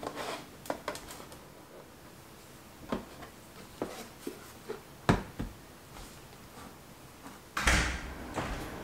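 Hard plastic clicks and knocks as a white plastic face-towel dispenser box is handled, refilled and set down on a stone countertop: a scattering of separate taps, the sharpest about five seconds in. A longer, louder rustling noise follows near the end.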